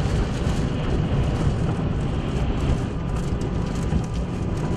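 Storm wind gusting to about 70 mph buffeting the vehicle and microphone: a loud, steady low rushing rumble, with faint scattered ticks, the leading winds of a weak EF-1 tornado.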